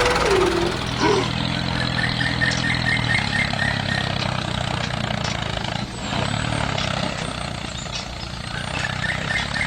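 A tractor engine running steadily with a low hum. A quick run of high chirps comes about two seconds in and again near the end.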